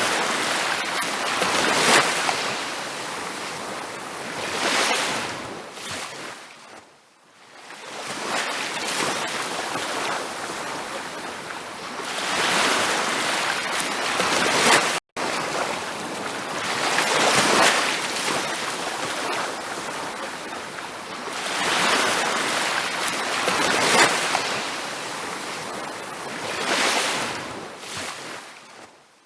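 Ocean surf breaking on a beach, swelling and washing back in repeated surges every few seconds. The sound cuts out for an instant about halfway through.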